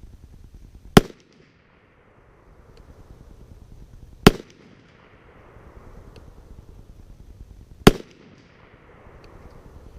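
Three unsuppressed rifle shots from a .300 Blackout AR-style rifle firing 220-grain subsonic open-tip rounds, about three and a half seconds apart. Each shot is a sharp report with a short echo.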